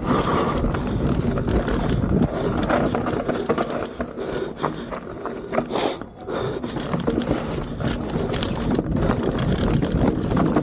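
Mountain bike riding fast down a rocky dirt trail: tyres running over dirt and loose stones while the bike rattles and knocks over the bumps. The noise dips briefly about six seconds in.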